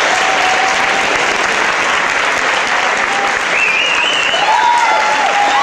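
Audience applauding steadily, with a few shouts and whoops breaking through from about three and a half seconds in.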